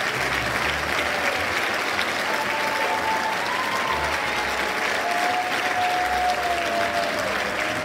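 Audience applauding steadily after an orchestra piece, with a few long, gliding whistles above the clapping.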